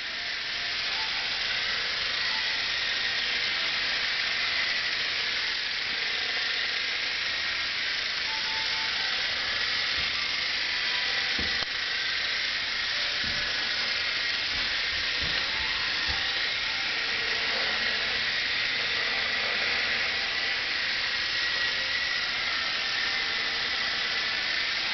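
Hobbico FireStrike electric RC helicopter in flight: its motors and rotor blades whir with a steady hiss and a high whine that wavers slightly in pitch.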